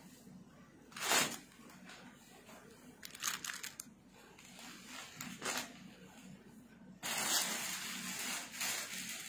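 A few short, quiet rustles and crinkles of cloth and plastic clothing packets being handled. About seven seconds in, a steady hiss comes in suddenly.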